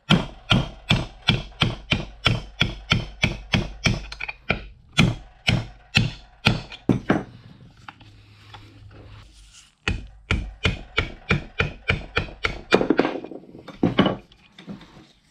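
Brass-headed hammer striking in quick, even blows, about three a second, to drive a tight-fitting steel shaft out of a Bridgeport 6F power feed's cast-iron handle casting. The blows stop for about two seconds a little past the middle, then start again.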